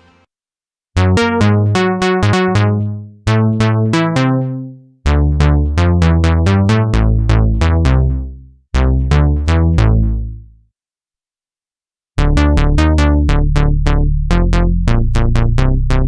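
Tone2 Nemesis 3 software synthesizer playing pulse-width-modulated bass presets: phrases of short, plucky bass notes with sharp attacks and fading tails, separated by brief silences.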